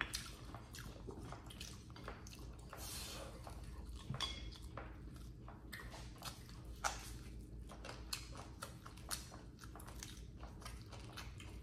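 Faint, close-miked chewing of goat meat, a tough, chewy cut, with irregular small clicks and rustles from gloved hands handling the food.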